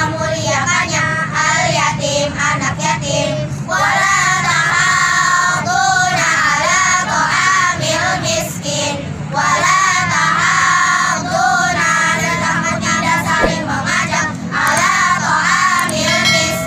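A group of children reciting memorized Quran verses together in a chanted, sing-song melody into a microphone, in phrases broken by short pauses every few seconds.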